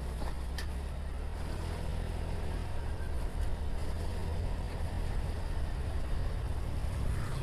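Motorcycle engine running steadily under way, a low even drone with a hiss of wind and road noise over it.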